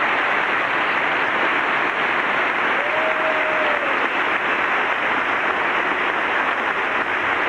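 Steady, sustained applause from a large audience of members of Congress welcoming a guest.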